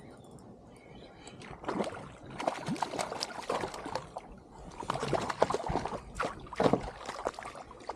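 Water splashing and sloshing against the kayak as a small hooked snapper is brought up to the surface alongside. The splashes come irregularly, starting about two seconds in and growing busiest in the second half.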